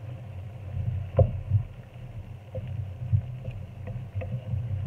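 Wooden spatula stirring a chicken-and-pineapple stew in a nonstick pan: wet stirring with a series of light clicks and knocks of the spatula against the pan, over a steady low hum.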